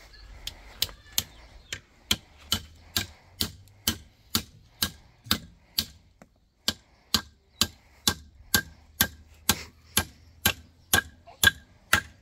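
A steady run of sharp knocks or blows, roughly two a second, with a short pause about six seconds in.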